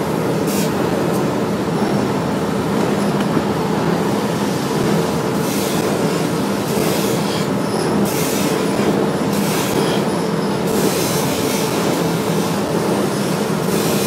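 A bench polishing wheel running with a steady hum. Repeated hissing surges come as a zinc alloy furniture handle is pressed against the spinning wheel, mostly from the middle onwards.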